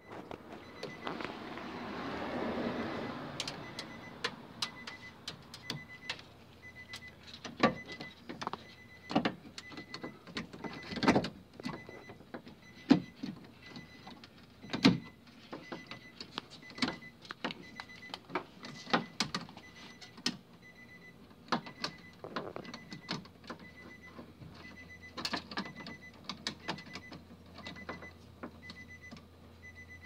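Hands fitting a power door lock actuator and its linkage rods inside a 2017 Nissan Versa's front door: irregular clicks, taps and knocks of plastic clips and parts against the door's sheet metal. A broad rushing swell fills the first few seconds.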